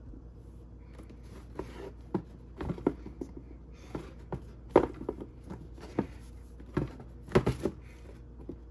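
Irregular taps, knocks and rustles of a pair of sneakers being handled and shifted on their cardboard shoebox, the loudest knock about halfway through.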